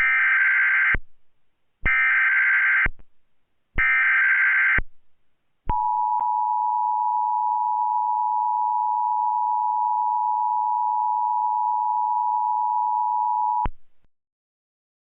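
Emergency Alert System tones: three one-second bursts of SAME digital header data about a second apart, then the two-tone EAS attention signal held steady for about eight seconds before cutting off sharply.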